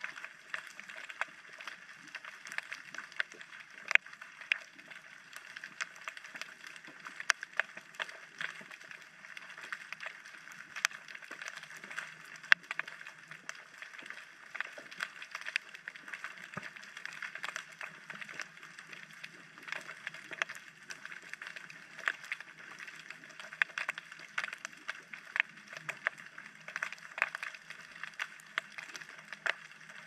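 Underwater ambience: a steady hiss with many irregular sharp clicks and crackles.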